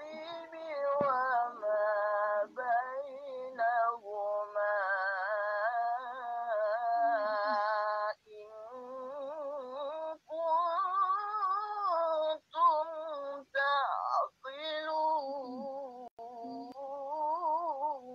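Melodic Quran recitation in Arabic: a single high voice draws out long, wavering ornamented notes in phrases of a few seconds, with short breaths between them.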